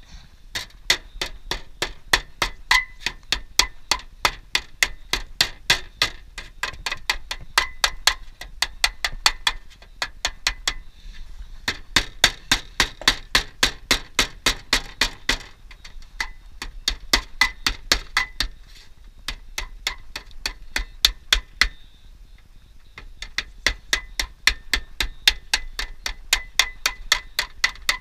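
Rapid hammer blows on aluminium roofing sheet, about three a second in runs with short pauses, each strike ringing slightly: the sheet is being hammered into shape as flashing around a chimney on a standing-seam roof.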